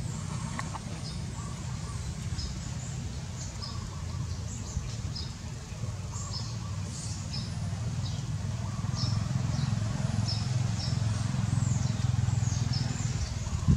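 Small birds chirping over and over in short, high, falling notes, over a steady low rumble that swells slightly in the second half.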